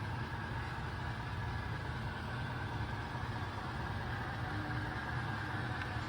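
MTH model of Nickel Plate Road steam locomotive 765 running at speed on its track, pulling a track cleaning car and a caboose: a steady rumble of motor and wheels.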